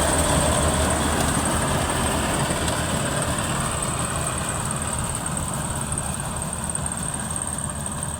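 Maxxi Bimo 102L rice combine harvester running steadily: a continuous engine drone with a thin, high, constant whine above it, slowly growing quieter.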